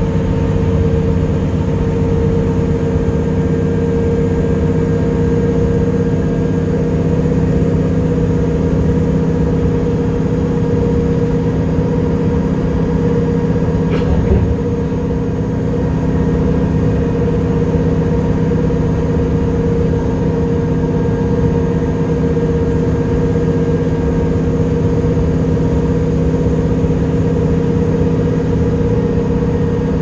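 Steady drone of a bus's engine and road noise heard from inside the cabin while cruising at highway speed, with one brief click about halfway through.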